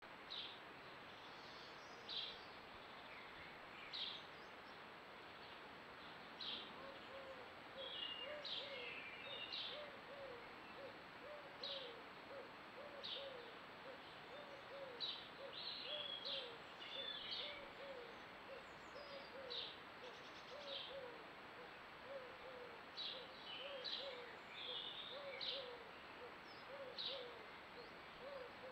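Garden birdsong: scattered short, high chirps from small birds, joined about seven seconds in by a low hooting call repeated steadily, about twice a second, over faint outdoor background noise.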